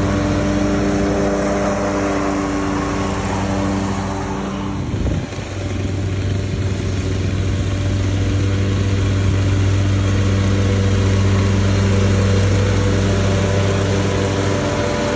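Lawn mower engine running steadily, with a brief dip and break in its sound about five seconds in.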